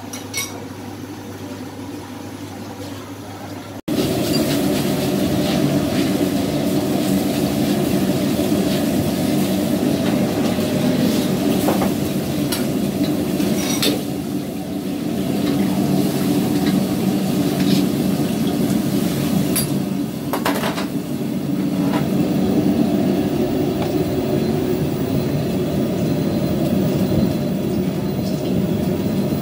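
Commercial gas wok burner running with a loud, steady rush, with occasional sharp clanks and scrapes of a ladle against the steel wok. The rush starts suddenly about four seconds in, after a quieter steady hum.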